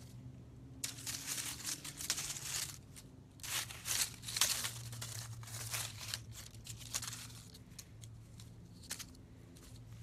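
Close rustling and crinkling of clothing handled against the microphone, in irregular bursts starting about a second in, loudest around the middle, then dying down to a few faint clicks.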